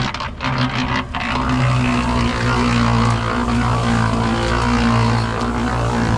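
An engine running steadily with a constant low hum, uneven for the first second and then even.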